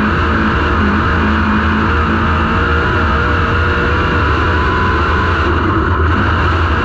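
Dirt Super Late Model race car's V8 engine running steadily at racing speed, heard from inside the cockpit as a loud, constant drone.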